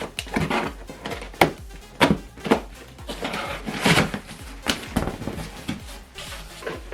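Cardboard box and packaging being handled: irregular knocks and clicks with scraping and rustling between them.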